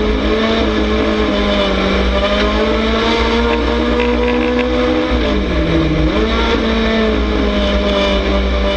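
Dirt-track race car's engine heard on board at racing speed, running at high revs. About five seconds in the revs drop briefly, as the throttle comes off for a turn, then climb back as it goes back on.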